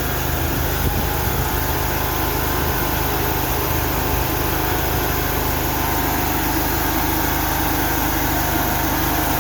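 Mini skid steer's engine idling steadily.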